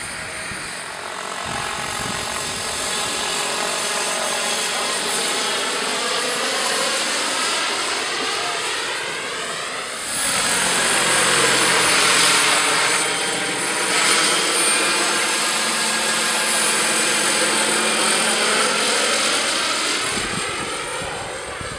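Radio-controlled scale model helicopters in flight: a steady whine from engine and rotors whose pitch slowly falls and rises as they manoeuvre. It gets louder about halfway through.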